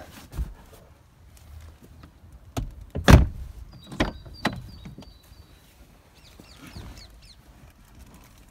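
Knocks and thumps of someone climbing into a car's driver's seat, the loudest a heavy thunk about three seconds in as the car door is pulled shut.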